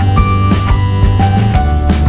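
Background music: a melody of held notes over a steady bass and beat.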